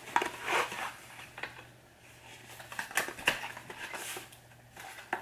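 Cardboard box of a Bosch oxygen sensor being opened and the sensor with its wiring pulled out: rustling of packaging with scattered clicks and taps.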